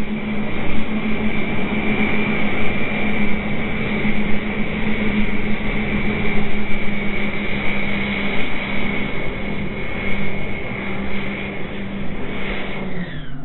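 Twin 50 mm electric ducted fans of a 3D-printed RC F-14 Tomcat model jet running in flight at power, a steady high whine. The pitch drops in the last second or so.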